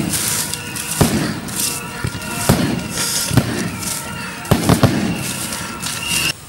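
A series of sharp bangs at irregular intervals, three of them in quick succession, over a steady hiss; the sound cuts off abruptly near the end.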